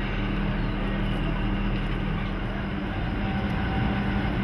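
Diesel shunting locomotive's engine running with a steady low hum as it slowly moves a coupled electric locomotive along the track.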